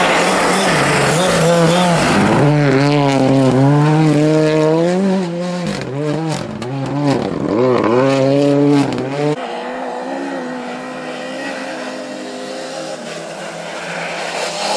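Rally car engine revving hard on a snowy stage, the pitch climbing and dropping again and again as it shifts through the gears, with sharp crackles mixed in. After about nine seconds it fades to a quieter, steadier engine note as the car moves away, and it rises again near the end as another car approaches.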